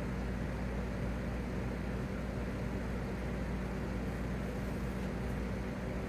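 Steady low hum with a faint even hiss, unchanging throughout.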